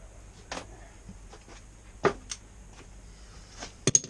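A few separate sharp metal clinks and knocks from hand tools and sockets being handled and swapped, the loudest a quick double knock near the end.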